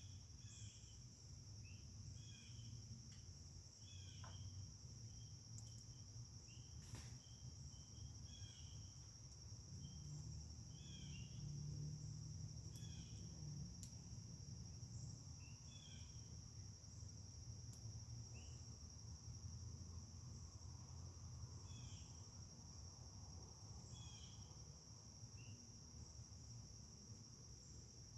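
Insects, likely crickets, trilling steadily and high-pitched, with short chirps repeating every second or two and a faint low rumble underneath.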